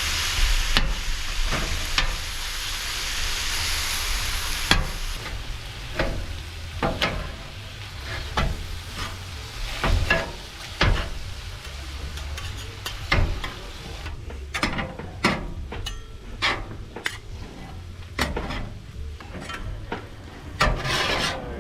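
Chicken sizzling on a Blackstone flat-top griddle, loudest for the first few seconds, then metal spatulas clacking and scraping on the steel plate as the chicken is chopped up.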